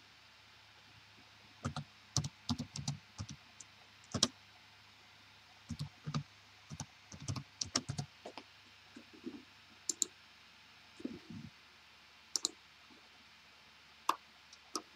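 Computer keyboard typing in two short runs of keystrokes, followed by a few separate mouse clicks.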